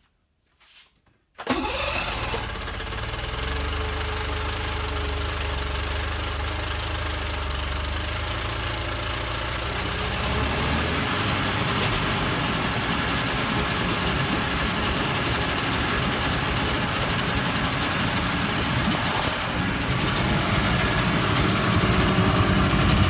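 Cold start of a Mercury 50 hp four-cylinder, twin-carburettor two-stroke outboard: it fires and catches abruptly about a second and a half in. It then runs steadily at a fast warm-up idle, with the remote's warm-up lever raised, and its note changes about ten seconds in.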